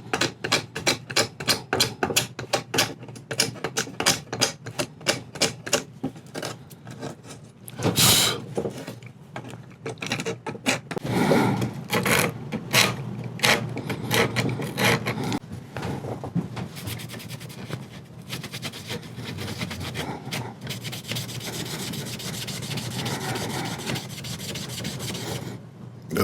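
Hand scraping on wood in quick, repeated strokes, about three or four a second, as old dried hide glue is taken off an antique chair's joints. There is a louder stroke about eight seconds in, and the second half turns into a steadier, continuous rubbing.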